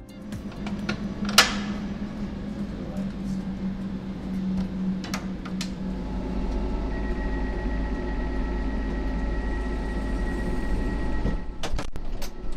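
Passenger railcar's folding entrance step being flipped up, with a loud clack about a second in, over a steady hum. Then the car's button-operated exterior door closes, with a low rumble and a steady whine for about five seconds, ending in a few sharp clicks.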